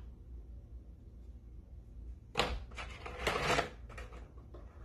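Rustling and handling of black vinyl wall-decal pieces in a shallow cardboard box: two short bursts of rustle, about two and a half and three and a half seconds in, over a low steady hum.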